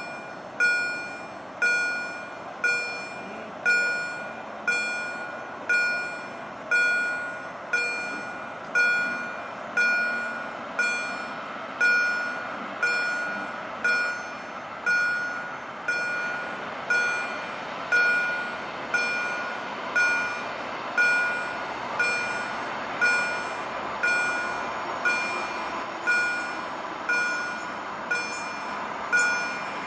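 Railway level crossing warning bell dinging steadily about once a second, each ding a bright ringing tone that fades before the next. Beneath it, the noise of an approaching electric multiple unit train grows louder.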